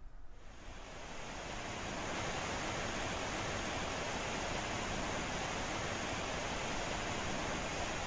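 Rushing water of a waterfall pouring into a creek: a steady, even roar that fades in over the first two seconds and then holds level.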